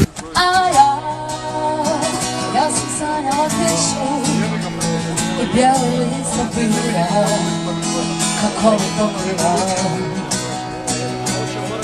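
A singer's voice over a strummed acoustic guitar, in a live solo performance.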